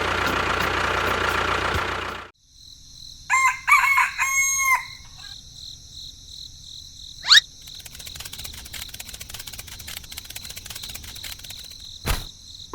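A loud, steady rushing noise cuts off suddenly about two seconds in, then a rooster crows once. Later comes a quick rising whistle, and a faint, steady high-pitched ringing tone.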